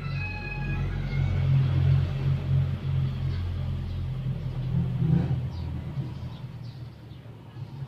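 Low rumble of a motor vehicle's engine running nearby, swelling and easing, fading somewhat near the end.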